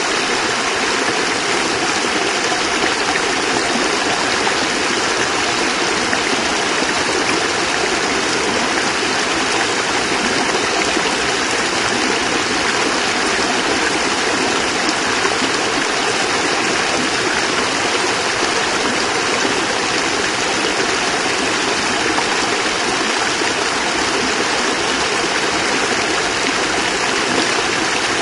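Small cascade of water splashing and running steadily over rocks, an even rush with no breaks.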